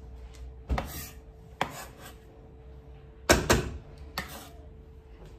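Chef's knife knocking and clinking against a frying pan as chopped onion is scraped into it: four sharp knocks, the loudest about three seconds in.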